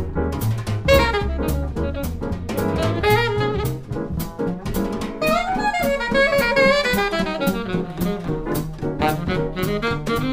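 Alto saxophone soloing in quick swung runs of eighth notes, climbing higher about halfway through, over double bass and drums keeping time.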